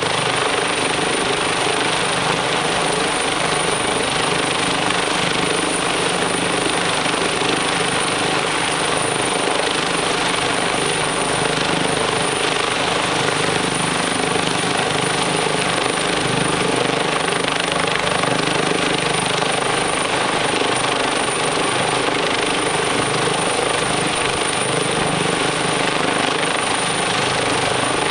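Rescue helicopter hovering while its hoist winches a person aboard: steady rotor and turbine noise that holds at an even level throughout.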